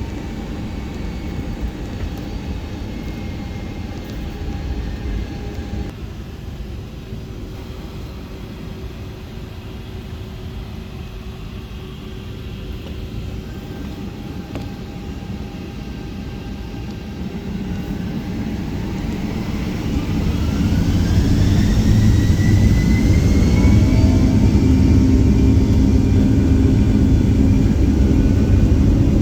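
Boeing 757-200 jet engines heard from inside the passenger cabin: a steady low rumble, then about two-thirds of the way through a whine rising in pitch as the engines spool up and the rumble grows louder, the engines going to takeoff thrust.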